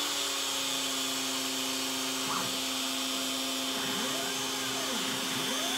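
A CNC machine's compact router spindle runs steadily at speed after starting back up. From a couple of seconds in, the machine's stepper motors add whines that rise and fall in pitch again and again as it traces circles.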